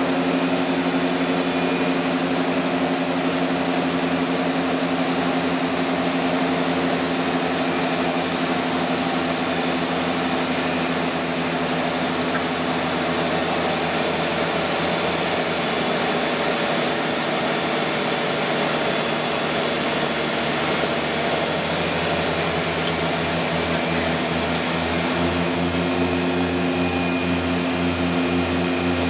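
Cabin noise of a de Havilland Canada DHC-6 Twin Otter's two Pratt & Whitney PT6A turboprop engines in flight: a steady propeller drone with a high turbine whine. The whine rises slightly in pitch about three quarters of the way through, and a low throbbing beat grows stronger at the same time.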